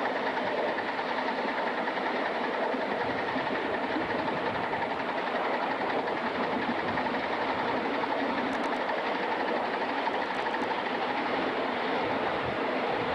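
Live-steam Atlantic-type locomotive #988 under steam, a steady, unbroken rush of steam and running noise.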